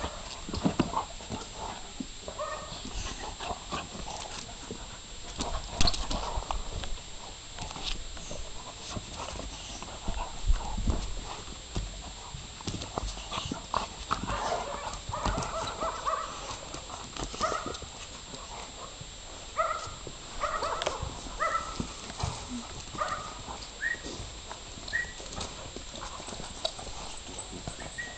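Two six-month-old puppies, a bullmastiff and a labrador, play-fighting: claws scrabbling and clicking on stone tiles throughout, with a string of short whining cries in the second half.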